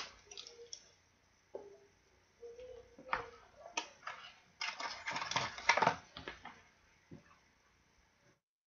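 Scattered clicks and taps with rustling, busiest in the middle, and a couple of faint murmured voices early on; the audio cuts out completely near the end.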